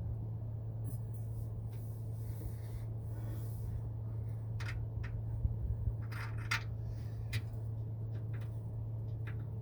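Scattered light metal clicks and scrapes as a bolt and nut are worked by hand into a train-horn mounting bracket, over a steady low hum.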